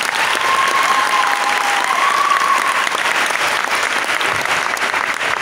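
A group applauding and cheering right after a band's performance, steady throughout, with a sustained high-pitched cheer over it for about two seconds near the start.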